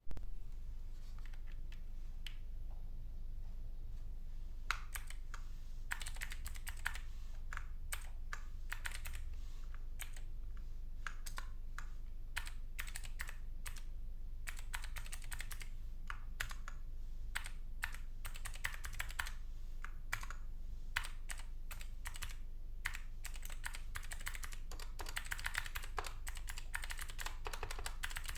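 Typing on a Dark Project KD2 mechanical keyboard with Gateron optical white and blue switches: irregular key clicks, sparse at first and fast and continuous from about five seconds in.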